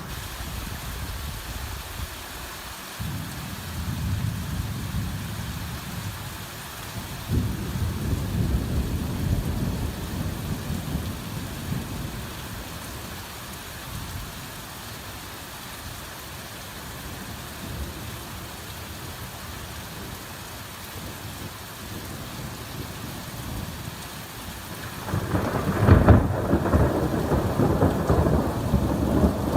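Heavy rain falling steadily, with low rolls of thunder rumbling through it; a louder, closer thunder rumble breaks in near the end.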